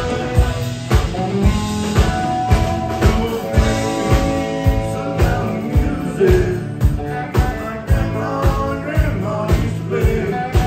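Live country-rock band playing: a drum kit keeps a steady beat of about two hits a second under guitars and bass.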